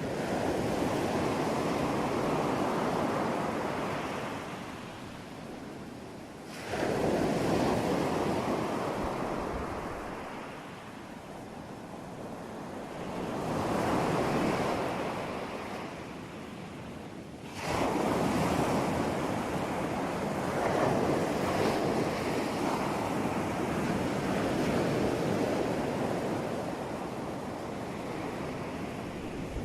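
Ocean waves breaking and washing in, the rushing surf swelling and ebbing, with a sudden louder crash about a quarter of the way in and another a little past halfway.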